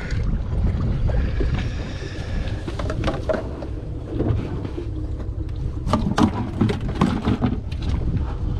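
Steady low rumble of wind and water around a fishing boat at sea, with scattered knocks and clicks that cluster about six to seven and a half seconds in.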